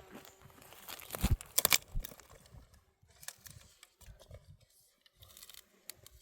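Dry branches crunching and snapping, with a few loud sharp cracks about a second and a half in, then quieter scattered crackles.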